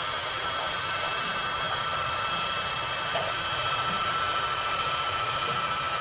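Large military jet transport's turbofan engines running at taxi power: a steady high-pitched whine over a low rumble.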